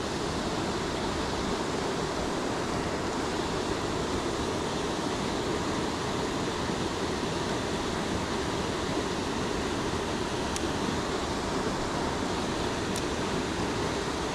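Waterfall rushing steadily, an even wash of falling water that does not change.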